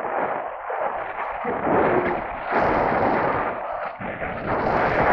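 Wind buffeting a camera microphone high on an open transmitter mast: a rough rushing noise that swells and fades in gusts.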